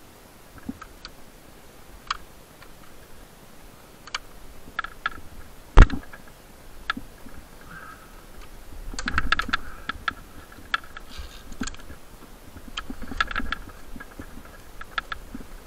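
Climbing gear and rope being handled: scattered sharp clicks and rustling scrapes, with one loud knock about six seconds in.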